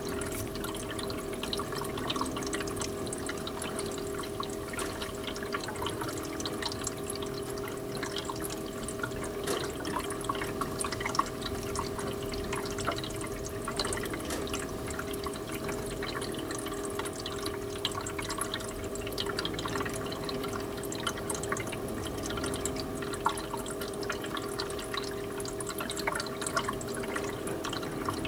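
Water dripping and tapping in many small irregular ticks, over a steady hum.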